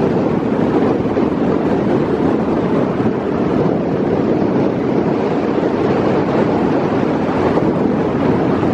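Steady rushing wind and road noise of a car driving on the highway in strong, gusty wind.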